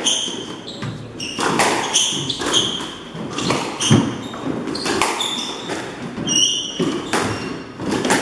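Squash rally: the ball cracking off rackets and walls every half second to a second, with short high squeaks of shoes braking on the wooden court floor between the shots.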